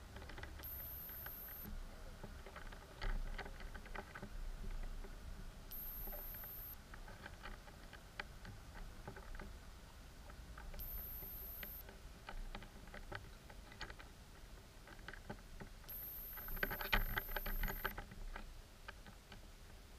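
Faint underwater sound picked up through an action camera's waterproof housing: scattered clicks and crackles over a low rumble, with a thin high-pitched tone about a second long that comes back roughly every five seconds. The last tone, near the end, lasts about two seconds and comes with a louder cluster of clicks.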